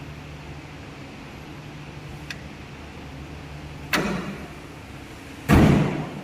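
Tata 407 CNG truck engine idling with a steady low hum. Two loud slams, like a door or panel shutting, come about four and five and a half seconds in; the second is the louder.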